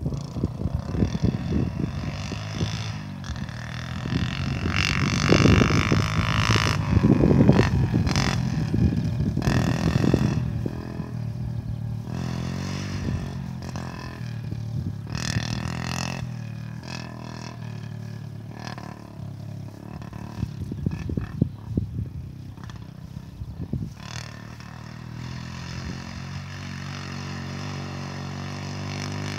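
A small petrol engine running at a distance, its pitch wavering a little, with loud gusts of wind noise on the microphone about five to ten seconds in.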